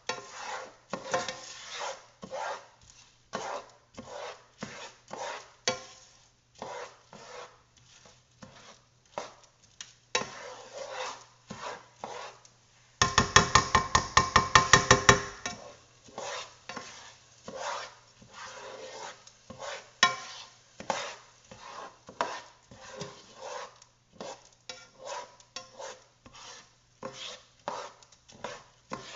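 A spoon stirring risotto rice in a pan as the rice absorbs the white wine, with repeated scraping strokes roughly two a second. About halfway through, a louder, quicker run of strokes lasts a couple of seconds.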